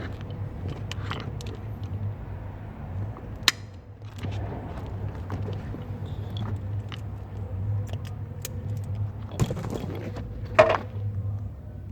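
Scattered clicks and light rattles of small wires and crimp connectors being handled over a steady low hum, with a sharp click about three and a half seconds in and a louder brief clack near the end.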